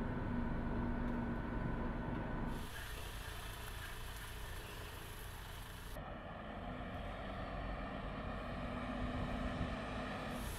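Steady vehicle running noise with a low hum, heard inside a truck cab and then inside a test-control vehicle. The noise changes abruptly twice, about two and a half and six seconds in.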